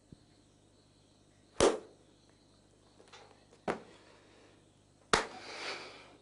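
Three sharp impacts, each about a second and a half to two seconds after the last; the first is the loudest, and the last is followed by about a second of fading noise.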